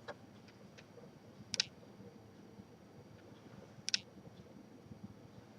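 A few sharp mechanical clicks from a 1951 Smith Corona Silent manual typewriter being worked: two quick double clicks about two seconds apart, with quiet room between.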